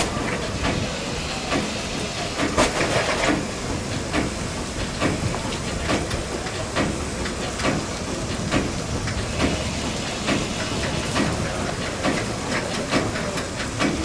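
Alishan Forest Railway's SL21, a Shay-type geared steam locomotive with vertical cylinders, running on the narrow-gauge track: a steady steam hiss with regular beats a little under a second apart, and a louder burst of hiss around three seconds in.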